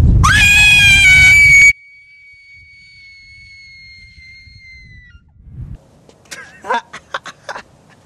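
A loud, high-pitched scream over a low rumble that cuts off abruptly about two seconds in. A faint thin tone follows, sinking slightly in pitch and stopping after about five seconds, then a few faint clicks.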